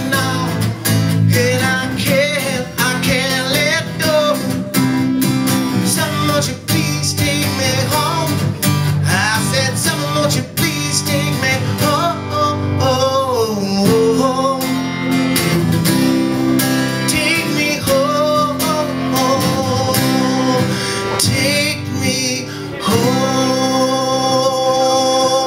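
Live acoustic song: a man singing over a strummed acoustic guitar with bass guitar underneath, the voice holding one long note near the end.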